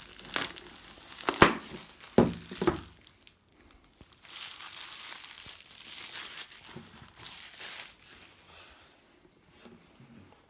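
Wrapping and security seal of a sealed trading-card box being torn and crinkled open: sharp crackles in the first three seconds, then a steadier crinkling that fades near the end.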